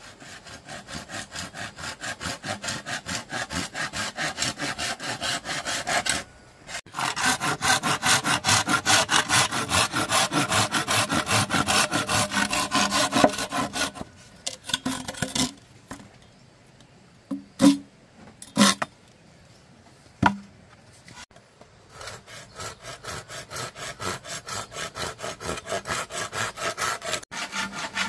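Hand saw cutting through bamboo in quick, even back-and-forth strokes, about four a second. The sawing stops for several seconds midway, with a few sharp knocks in the pause, then starts again.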